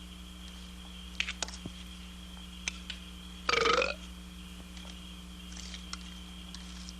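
A person burps once, a short pitched burp lasting about half a second, midway through. A steady low hum runs underneath, with a few faint clicks before the burp.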